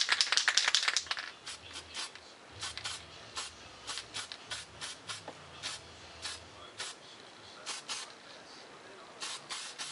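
Aerosol spray-paint can: the mixing ball rattles as the can is shaken for about the first second, then short hissing puffs of paint follow, about two a second, as a light first coat of black goes on.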